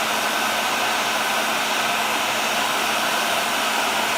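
Hair dryer running steadily: a constant rush of blown air with a thin steady whine from its motor.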